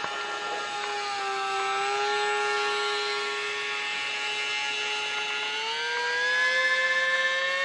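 Electric motor and propeller of a ParkZone ultra micro Icon A5 RC flying boat whining at a steady pitch, dipping slightly about a second and a half in, then rising in pitch over the last couple of seconds.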